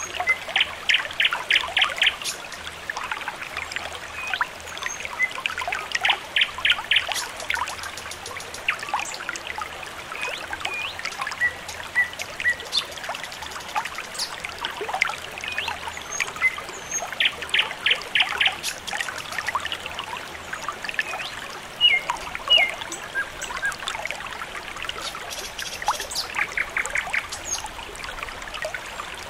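Water trickling steadily with small birds chirping over it, and a quick rapid trill breaking in every few seconds.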